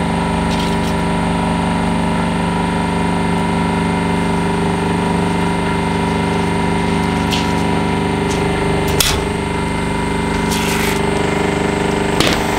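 Hydraulic press's pump motor running with a steady hum while the ram crushes an aerosol can of spray whipped cream. About nine seconds in, the can bursts with a sharp pop, and a short hiss follows a second or two later as the pressurised cream escapes.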